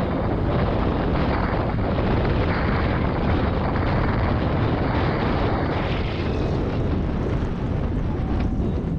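Steady wind rush on the microphone of a bicycle descending a paved road at speed.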